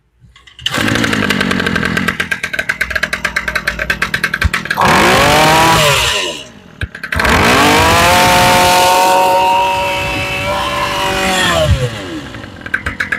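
26cc Ryobi brush cutter engine test-run: it starts up about half a second in and idles. It is then revved up to high speed twice, the second time held for several seconds, before dropping back to idle near the end.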